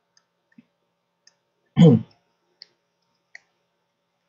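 A few faint, scattered clicks from pen input on a drawing tablet, and about halfway through a short vocal sound from a man, a brief hesitation rather than a word.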